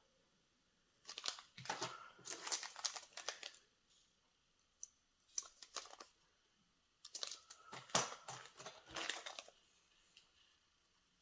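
Plastic packaging crinkling and being torn open by hand, in three bouts of rustling and crackling with short pauses between them.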